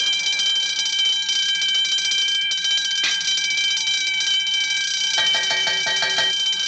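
Electric alarm bell ringing continuously with a steady, rapid high ring. About five seconds in, a quick run of short pitched notes lasting about a second sounds over it.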